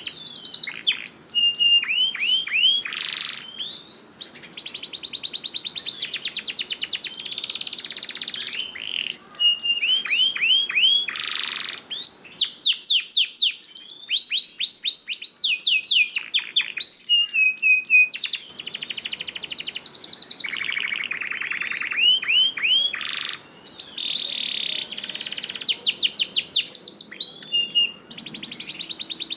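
Canary singing a long, continuous song: rapid trills of evenly repeated notes alternate with runs of quick downward-sliding whistles, with only brief breaks between phrases.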